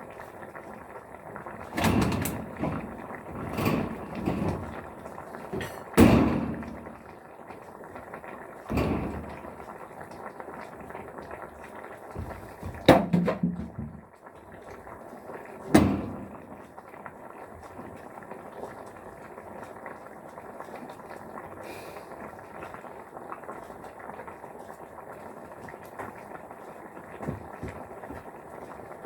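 A series of knocks and clunks, six or so in the first sixteen seconds, as things are set down and moved about, then a steady low background noise.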